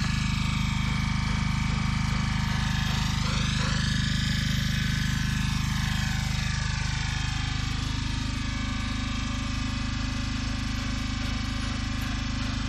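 An engine running steadily throughout, a continuous mechanical hum whose pitch drops slightly about eight seconds in.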